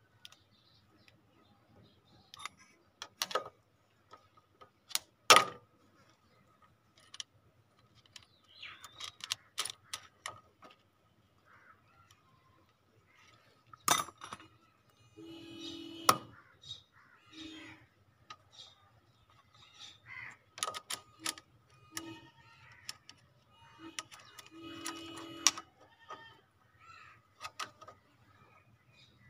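Scattered metal clicks and knocks as a Honda CD 70 engine's cam-chain sprocket and magneto flywheel are turned and repositioned by hand to set the valve timing, the loudest knock about five seconds in. Short bird calls come and go in the background.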